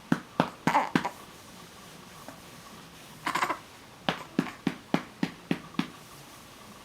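A hand patting a baby's back to bring up a burp: a few pats in the first second, a short noisier sound about three seconds in, then a run of seven quick, even pats at about three a second.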